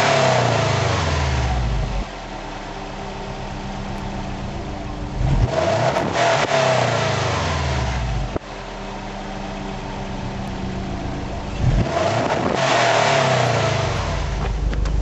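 2004 Subaru Forester XT's turbocharged 2.5-litre flat-four running through a 2006 STI factory cat-back exhaust. The engine idles and is revved briefly twice, about six seconds apart, the revs falling back to idle each time. It opens with the revs already falling from an earlier blip.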